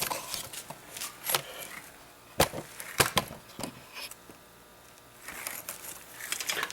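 Handling noise: scattered sharp clicks and knocks with light rustling, as a camera is picked up, carried and set down again.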